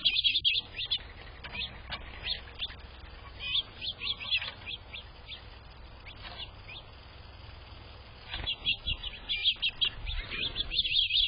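Small songbirds chirping in a dense, rapid chatter at the start and again from about eight seconds on, with scattered single chirps in between. A low steady hum runs underneath.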